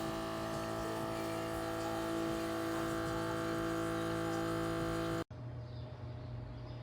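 Keurig K-Mini coffee maker humming steadily while it brews, a machine tone with many overtones, cutting off abruptly about five seconds in.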